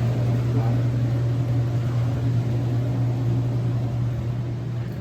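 Clothes dryer and washing machine running together: a steady low hum with a rushing noise over it.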